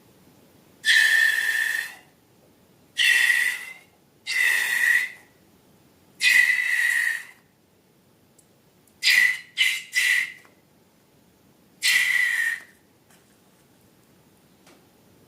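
Air escaping from a balloon's neck in eight short hissing, whistling blasts, each holding one steady high tone. Three quick ones come close together about halfway through.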